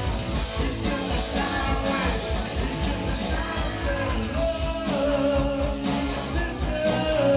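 Live rock band playing, with electric guitars, drums and a woman singing.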